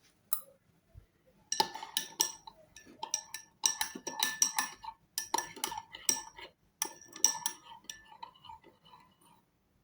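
A utensil clinking over and over against a ringing dish or cup. The clinks begin about a second and a half in and are irregular, dense and sharp.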